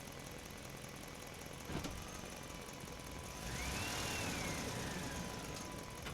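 Heavy earthmoving machine's engine running steadily, with a sharp knock about two seconds in. From about halfway it runs louder under load, with a whine that rises and then falls.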